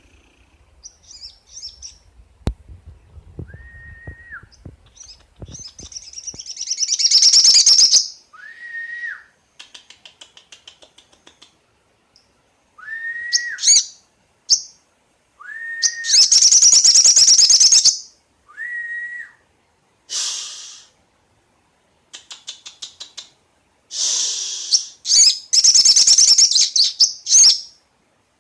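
Young wild-caught sogon (crested jay) calling. Short clear whistles, each rising then held, alternate with loud harsh rattling trills lasting a second or two.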